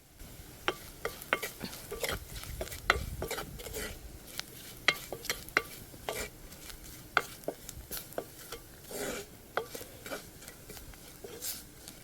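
Spoon stirring onions, chilli powder and masala powder frying in oil in a pan: irregular sharp clicks and scrapes of the spoon against the pan over a faint sizzle.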